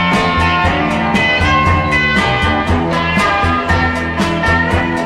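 A 1960s-style psychedelic rock band playing an instrumental passage of a song, with held pitched notes over a fast, steady drum beat.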